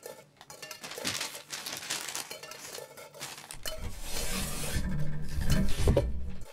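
A large sheet of stiff brown paper rustling and crackling as it is unfolded and handled. About halfway through a low rumble joins in and grows louder toward the end.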